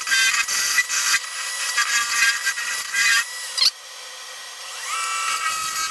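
Wood lathe spinning an African walnut blank while it is worked, with loud rough rubbing of tool or abrasive against the wood in bursts for about three and a half seconds. It goes quieter, and a steadier machine whine comes in near the end.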